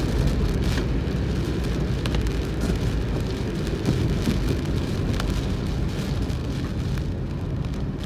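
Heavy typhoon rain and wet-road noise heard from inside a moving car: a steady low rumble of tyres on the soaked road, with scattered taps of rain on the car.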